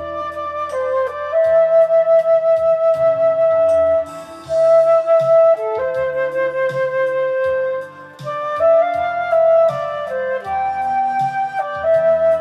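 Flute playing a sustained pop melody in long held notes over a karaoke MIDI backing track with bass and drums. A cymbal crashes about four and a half seconds in.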